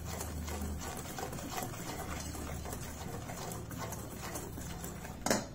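Wire whisk beating dry flour, sugar and cocoa in a stainless steel bowl: a fast run of light scraping, ticking strokes against the metal, with one louder clink near the end.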